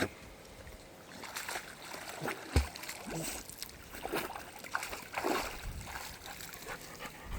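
A Labrador splashing about in water: irregular splashes and sloshes, with one sharp knock about two and a half seconds in.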